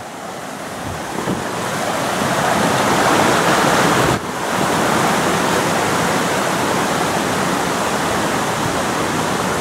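Shallow rocky stream rushing over rocks in small cascades: a steady rush of water that swells over the first few seconds and dips for an instant about four seconds in.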